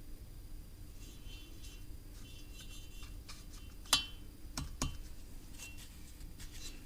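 Light metallic clicks and clinks from an engine valve being worked up and down in its guide in a stripped cylinder head, the sharpest click about four seconds in, with two more shortly after.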